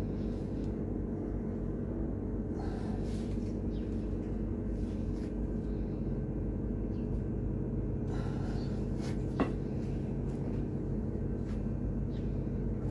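A steady low hum, with faint clicks and clinks of a steel spoon being worked in a bench vise and one sharp click about nine seconds in.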